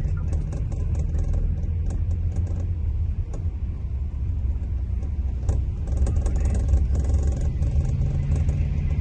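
Scania diesel engine of a Marcopolo Paradiso 1800 DD double-decker coach, running with a steady low drone as heard inside the passenger cabin. Rapid light clicks and rattles run over it.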